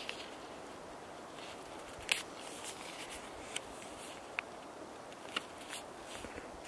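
Footsteps: irregular steps and sharp little snaps over a steady hiss, the loudest snap about two seconds in.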